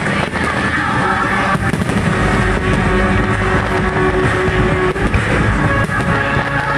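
Music playing loudly throughout, with a few bangs of aerial firework shells bursting over it.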